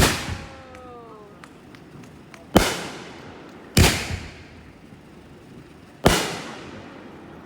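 Aerial fireworks bursting close overhead: four sudden loud bangs, each dying away, the second and third about a second apart.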